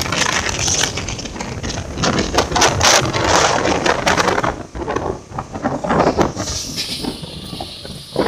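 Passenger train running, heard from the vestibule between coaches: a dense, irregular run of knocks and rattles over a rushing noise, easing somewhat after about four seconds.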